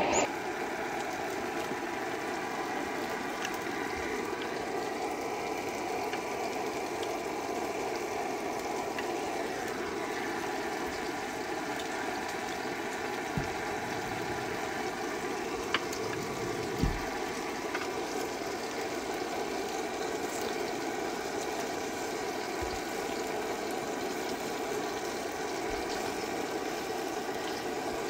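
Portable gas camping burners running with a steady hiss under a pot of stew and a frying pan of bacon rolls, with a few light clinks of utensils in the middle.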